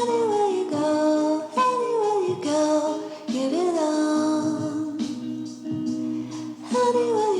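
Background music with a female voice singing a gliding melody over steady accompaniment.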